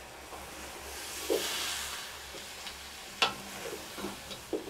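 Wooden spoon stirring sliced mushrooms and onions in a stainless steel kettle over charcoal, with the food sizzling as it fries. The sizzle swells about a second in, and the spoon knocks and scrapes against the steel a few times, sharpest about three seconds in.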